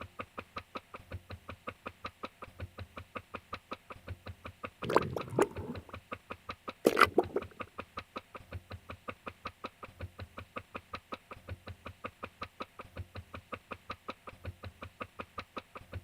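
Steady rhythmic clicking of train wheels over rail joints, about four or five clicks a second, with two louder, noisier bursts about five and seven seconds in.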